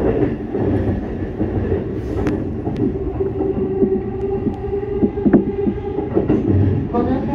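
E233-series electric train running: a steady hum and rumble of motors and wheels on rail, with irregular sharp clicks as the wheels pass rail joints and points.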